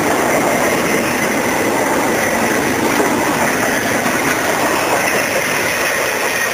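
Empty intermodal well cars of a freight train rolling past close by: a steady noise of steel wheels on rail.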